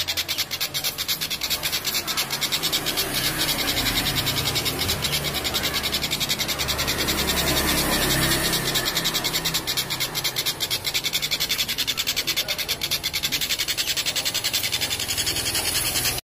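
Kingfisher (tengkek udang) giving its long cackling call: an unbroken run of rapid, evenly repeated notes that cuts off suddenly near the end.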